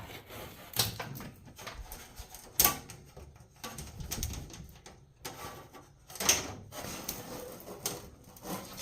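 Irregular scraping and rustling with several sharp knocks, from floor covering and sound insulation being pulled up and handled on a Jeep's floor pan.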